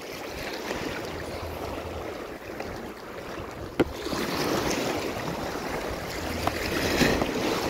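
Sea water washing and lapping over shoreline rocks, a steady rush that swells a little in the second half, with one sharp click a little before four seconds in.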